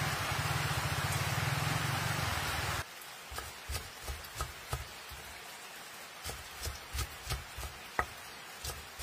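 Steady rain falling on a corrugated metal roof, cutting off suddenly about three seconds in. Then a knife chopping fresh green herbs on a wooden cutting board: a run of short knocks about three a second, with a brief pause midway.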